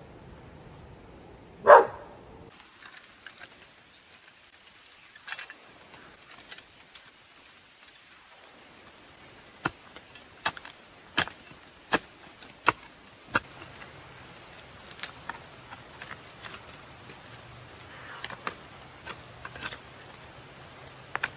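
A dog barks once near the start. Later comes a run of five sharp knocks about two-thirds of a second apart, followed by a few lighter scattered ticks.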